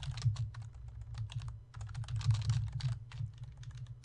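Typing on a computer keyboard: quick runs of keystrokes with brief pauses between them.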